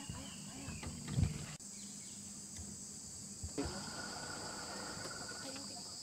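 Steady high-pitched insect chorus in dry forest, with a second, lower steady drone joining about halfway through. A low thump just over a second in is the loudest moment.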